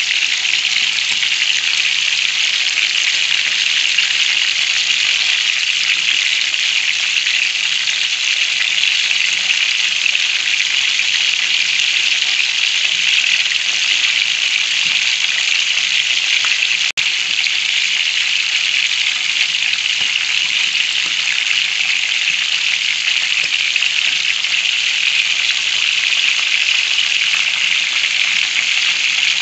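Whole quail deep-frying in hot oil: a steady sizzle, with one momentary break a little past the middle.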